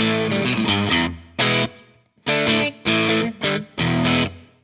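Electric guitar played through a Way Huge Red Llama overdrive pedal into a Bassman amp, with the drive turned down for a lightly distorted, bluesy tone. It plays a run of short chord stabs with short gaps between them, and the last chord dies away near the end.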